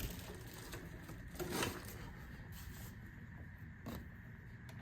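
Faint handling noises as intake parts are fitted: a few soft knocks and rustles, one near the start, one about a second and a half in and one near the end, over a low hum.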